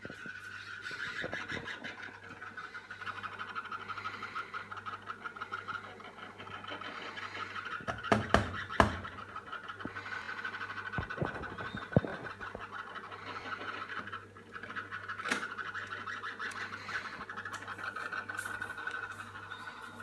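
Faulty Baumatic cooker clock timer making a continuous high-pitched buzz with a fast flutter, a really bad noise, which dips briefly twice. A few sharp knocks about eight to nine seconds in and again at twelve seconds.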